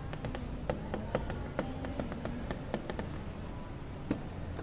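Indoor shop ambience: a steady low hum with scattered, irregular light clicks and taps.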